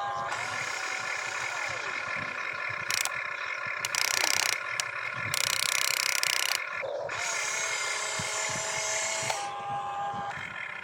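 Small electric motors of an RC construction vehicle whirring steadily, with several louder stretches of harsh hiss-like noise around the middle.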